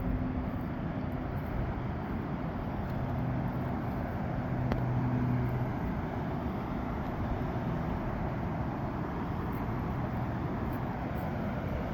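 Steady rushing of a river waterfall, with a faint low hum swelling briefly in the middle.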